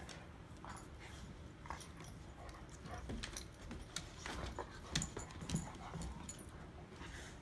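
Clumber spaniels playing: irregular scuffling with short clicks and knocks, the sharpest pair about five seconds in, and a few brief dog vocal sounds.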